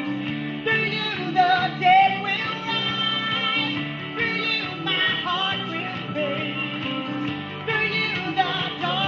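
A woman singing a worship song over a music accompaniment, holding long notes with vibrato.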